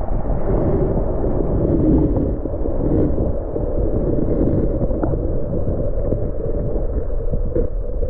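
Steady, muffled low rushing of river water picked up by a camera held underwater, with a few faint clicks.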